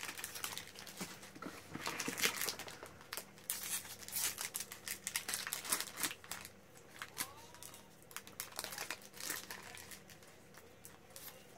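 Foil-lined Magic: The Gathering booster pack wrapper crinkling in the hands and being torn open: irregular crackles, busiest in the first half and thinning toward the end.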